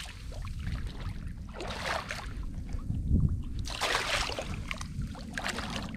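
Wind rumbling on the microphone over a small boat, with short rushes of splashing and rustling as a wet gill net is pulled in, the largest about four seconds in.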